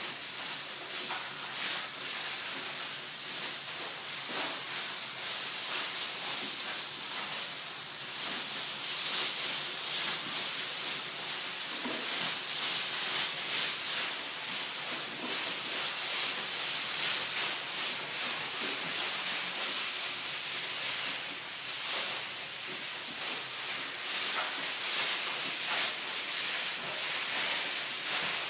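Woven rush tatami omote mat rustling and scraping as it is rolled tightly by hand: a steady dry hiss with many small scrapes.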